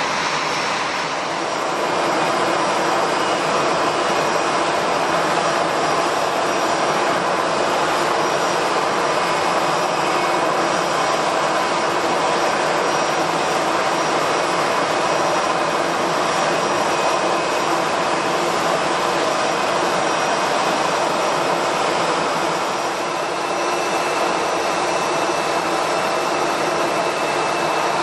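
Jet airliner's turbofan engines running steadily, a loud even rush with a faint high whine.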